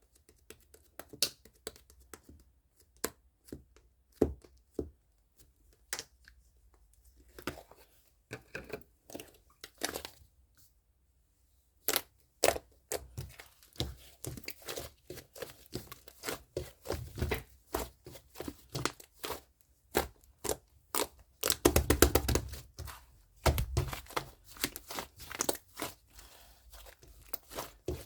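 Soft, fluffy clay slime being squeezed, poked and stretched by hand, giving irregular sharp crackling clicks and pops. The clicks are sparse at first, pause briefly about ten seconds in, then grow denser, with a thick run of crackling about three quarters of the way through.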